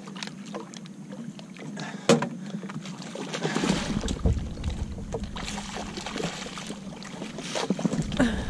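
A hooked redfish thrashing and splashing at the water's surface beside the boat as it is netted, the splashing heaviest from about three and a half seconds in. A single sharp knock about two seconds in.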